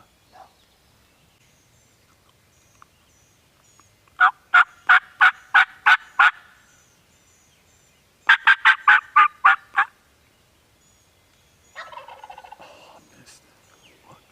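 Two loud runs of turkey hen yelps, about eight sharp notes each at roughly four a second, from a hunter's turkey call. About a second later a lower, rattling wild turkey gobble answers. Small songbirds chirp faintly throughout.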